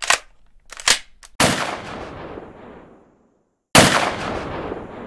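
Gunshot sound effects: two loud blasts about two seconds apart, each trailing off in a long echo, after two short sharp cracks in the first second.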